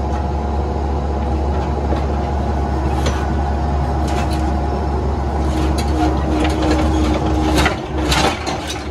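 Bobcat 337 mini excavator's diesel engine running steadily with a hydraulic hum as the arm and bucket move, and clanks and scrapes of scrap sheet metal under the bucket, mostly from about five seconds in.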